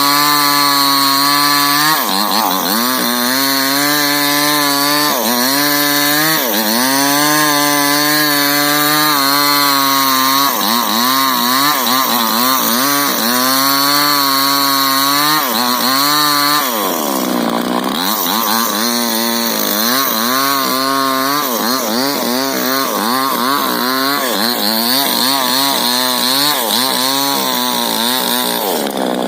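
Two-stroke chainsaw running at high revs while cutting rubber-tree wood. Its pitch dips and recovers every second or two as the chain bites into the cut, with one deeper drop a little past halfway.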